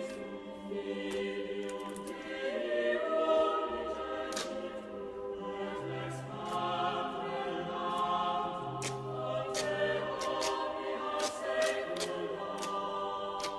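Background music with choir-like singing in long held notes, with short sharp clicks scattered through it.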